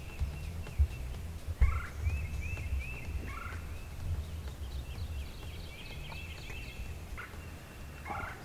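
Wild turkey gobbler gobbling three times, each call a rattling burst that falls in pitch, about two seconds in, a second and a half later, and again near the end. Under it runs a steady low rumble, with two short thumps in the first two seconds.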